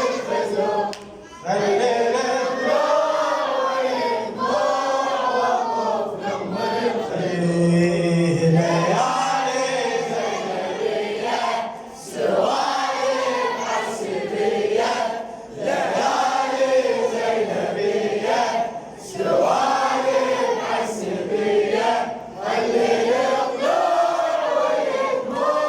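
A group of voices chanting a Shia mourning elegy (latmiyya) together, in slow melodic phrases with a short break every few seconds.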